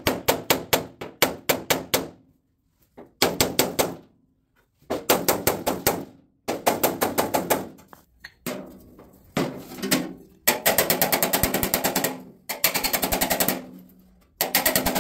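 Hammer tapping out a dent in the sheet steel of a 1949 Cadillac quarter panel: rapid, evenly spaced metallic taps, several a second, in bursts of one to two seconds with short pauses between.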